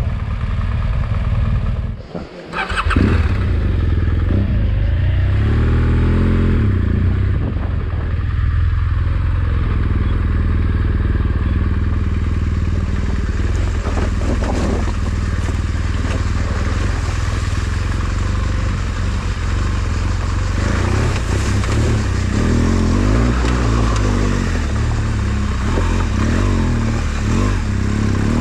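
Off-road motorcycle engine running under way, its pitch rising and falling with the throttle. The sound drops out briefly about two seconds in.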